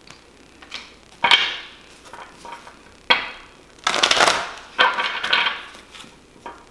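A deck of tarot cards being shuffled and handled by hand: a series of quick papery swishes and taps, about five bursts, the loudest about four seconds in.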